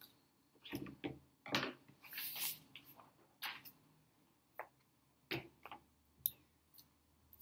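Card cut-out pieces being picked up and laid down on a table: a scattering of light taps and rustles, thinning out after the first few seconds, with one sharper click about six seconds in.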